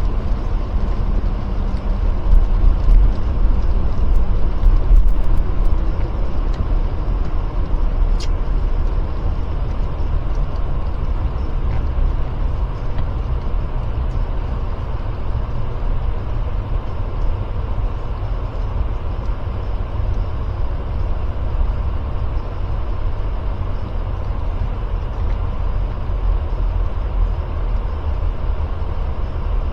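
Jeep Gladiator driving on a snow- and slush-covered road: a steady low rumble of engine and tyres, with a scattering of faint ticks in the first eight seconds or so.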